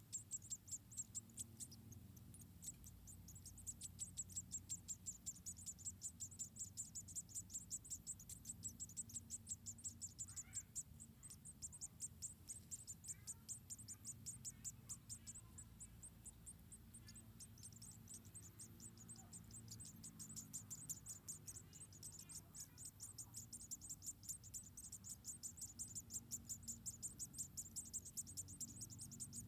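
An insect chirping in a high, even pulse, about five chirps a second, with brief pauses about three seconds in and again past the middle. Faint short calls and a low hum run underneath.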